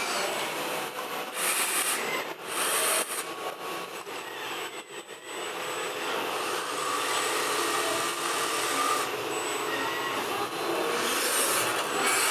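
Radio-controlled scale model trucks running, with a steady whirring mechanical whine whose pitch drifts. Three short hissing bursts break in, twice in the first few seconds and once near the end.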